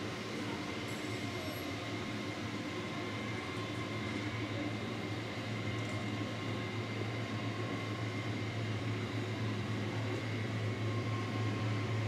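H0-scale model trains running on a large layout: a steady rumble over a low hum, growing slightly louder toward the end.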